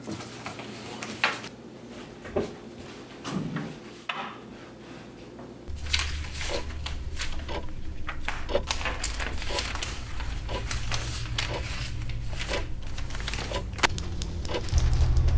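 Knocks and handling noises, then sheets of paper rustling and being shuffled on a desk over a steady low hum that gets louder near the end.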